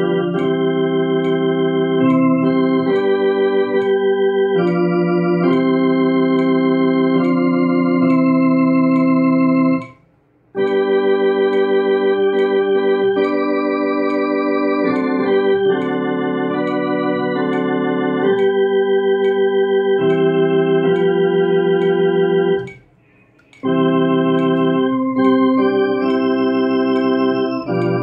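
Electronic organ playing a slow hymn with the right hand, soprano melody with the alto line below it in held chords that do not fade. The sound stops briefly twice, about ten seconds in and again near 23 seconds, between phrases.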